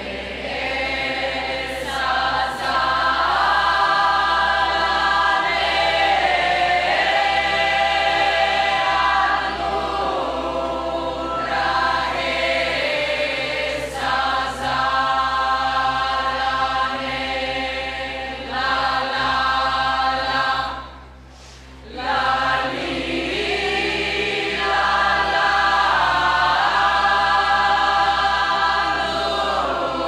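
A large choir of many voices singing a folk tune from Resia in long sung phrases, with a brief break about two-thirds of the way through.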